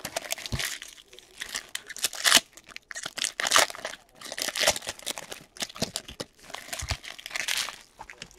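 Foil trading-card pack wrappers crinkling and crumpling in the hands as packs are torn open, in irregular bursts.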